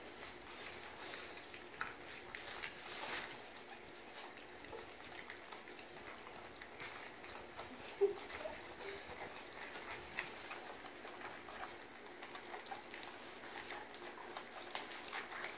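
Young puppies lapping and smacking food from a stainless steel bowl, a faint irregular patter of small wet clicks. There is a short squeak about eight seconds in.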